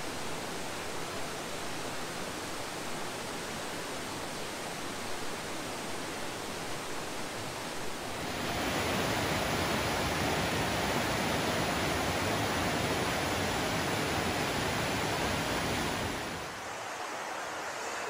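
Steady rushing of the Shasui waterfall. About eight seconds in it becomes louder and fuller, then drops back to a quieter rush near the end.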